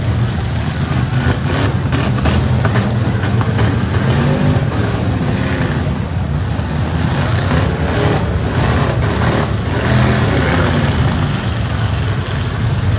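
Several V8 stock-car engines revving and running loudly at once, rising and falling in pitch, with a few short bangs mixed in about one and a half seconds in and again around eight to nine seconds in.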